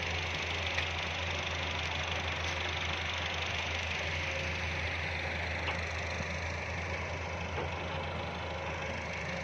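Heavy machine's diesel engine running steadily at a low, even drone, with a few faint clicks.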